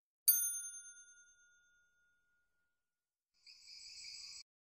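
A single bright chime struck once, its ringing tones fading over about a second and a half. Near the end, a short hiss lasting about a second.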